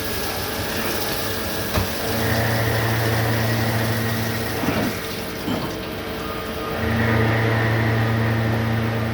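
CNC automatic lathe running through its machining cycle: a steady wash of noise under a low machine hum that cuts in for a couple of seconds and drops out again in a repeating cycle, with a sharp click about two seconds in and a few knocks around the middle.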